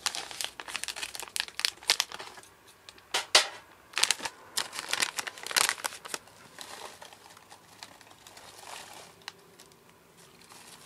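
Plastic snack bag of Ding Dong mixed nuts crinkling as it is handled and a hand rummages in it, with sharp crackles that are loudest in the first six seconds, then fainter rustling.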